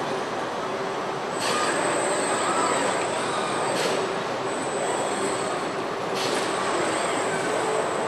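Car body-shop machinery noise: industrial robot arms running with a steady hum, broken by a short hiss about every two and a half seconds, the first followed by a thin high whine.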